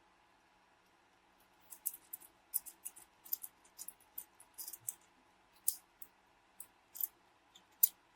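Camera cage and its parts being handled: an irregular run of sharp, light clicks and scrapes of small hard parts that starts about two seconds in.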